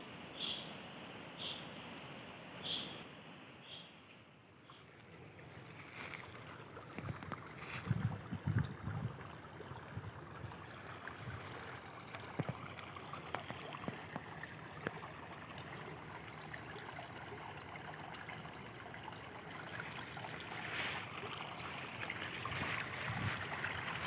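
A shallow forest stream runs over leaf litter with a steady trickling rush. Over the first few seconds a bird repeats a short high call about once a second. There are a few low bumps about eight seconds in.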